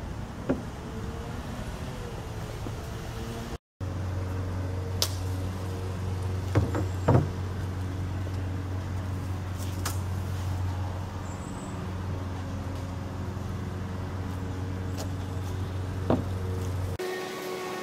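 A steady low mechanical hum under several sharp knocks and taps of lumber and small tools being handled on a wooden work table.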